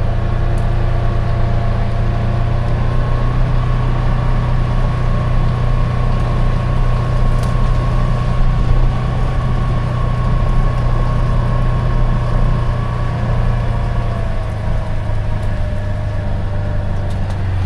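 Polaris Ranger 1000 XP side-by-side's twin-cylinder engine running at a steady pace while driving, a constant low drone.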